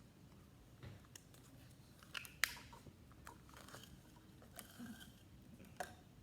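Faint clicks and crinkles of small plastic K-cups being handled while yarn is pushed and pulled through the holes in their bottoms, with one sharper click about two and a half seconds in.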